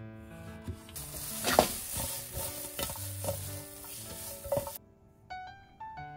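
Bamboo shoot pieces sizzling in oil in a frying pan while a spatula stirs them, with several sharp knocks of the spatula against the pan. The sizzle starts about a second in and cuts off suddenly near the end, leaving background music, which plays throughout.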